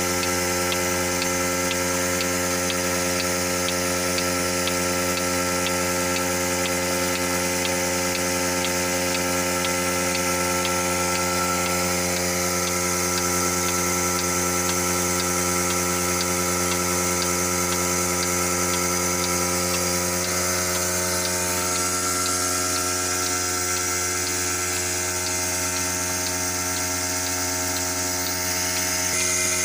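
Electric milking machine running with a steady hum, its pump and pulsator working. There is a faint regular ticking in the first part, and the tone shifts slightly about two-thirds of the way through.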